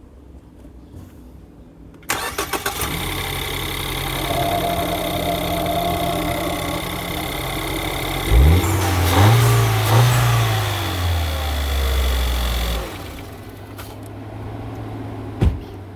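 A 2014 Ford Escape's 1.6-litre EcoBoost turbocharged four-cylinder engine is started for its first run on fresh oil after an oil change. The starter cranks briefly about two seconds in and the engine catches into a steady idle. Its speed rises and falls about six seconds later, then the sound drops back, with a sharp knock near the end.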